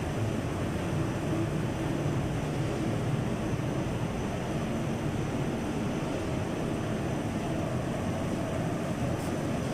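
Stack-type six-colour flexographic printing press running: a steady, dense mechanical hum of rollers and drives, with a thin high whine over it.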